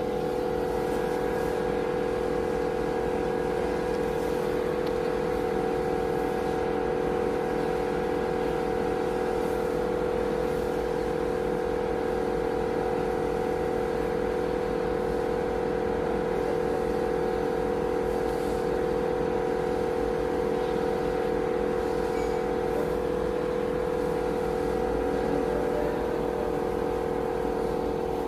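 GMC vehicle's engine running steadily with a constant whine, no revving or change in pitch.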